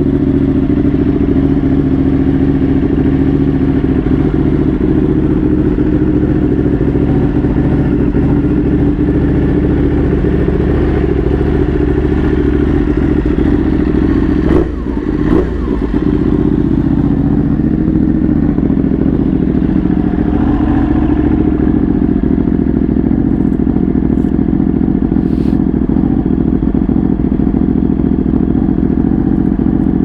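Ducati 1199 Panigale's Superquadro V-twin idling steadily through a Vandemon titanium undertail exhaust. About halfway through, the sound briefly dips and then recovers.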